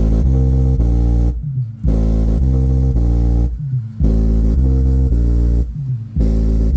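A song played loud through an Ahuja N18-SW1800 1800-watt neodymium speaker, dominated by deep, sustained bass notes that come in repeating phrases every couple of seconds with short breaks between them.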